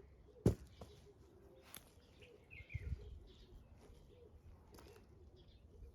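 Hands working through potting soil and potatoes: a sharp click about half a second in, then rustling, a couple of lighter clicks and soft thumps. Faint bird chirps in the background.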